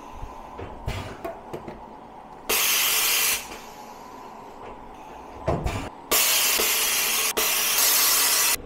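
Tormach 1500MX automatic tool changer at work: two loud blasts of compressed-air hiss at the spindle, a short one about two and a half seconds in and a longer one near the end, with clunks and knocks from the tool carousel and spindle between them.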